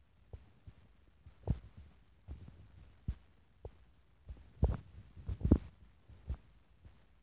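Wind gusting across the camera's microphone: irregular low rumbling thumps, strongest about four and a half and five and a half seconds in.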